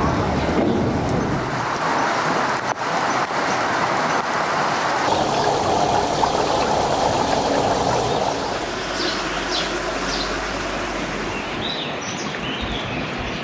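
Steady rushing of running water, with birds chirping a few times in the second half.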